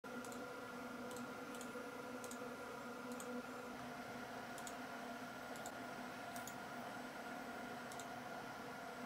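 Computer mouse clicking about nine times at irregular intervals, over the steady multi-tone hum of an HP ProLiant ML350 G6 server's cooling fans running.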